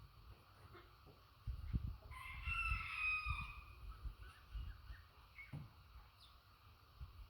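A rooster crowing once, a single call of about a second and a half, over low rumbling and thumps.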